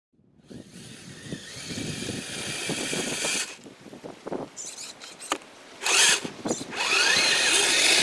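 Electric drive motors and gearboxes of a Kyosho Blizzard RC snowcat whining as it drives through snow in stops and starts. The motor runs for about three seconds, then gives a few short bursts, then runs again near the end with its pitch rising and falling as the throttle changes.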